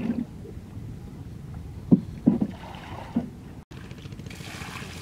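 Several dull knocks from a wooden plank fishing boat as a fisherman hauls in a net line from the bow, over a low steady outdoor background. Near the end there is a short, hissy splash.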